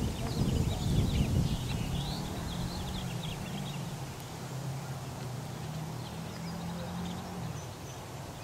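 Birds chirping in quick short calls over the first few seconds, and a steady low hum from a distant engine that starts about two seconds in and stops near the end.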